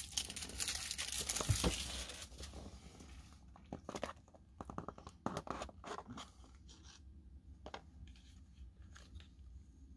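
Packaging being torn and crinkled for about the first two seconds, then scattered light clicks and taps as a small cardboard box is handled and opened.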